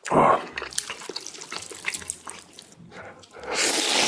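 Noodles slurped close to the microphone: a short loud slurp at the start, soft wet chewing clicks, then a longer slurp near the end.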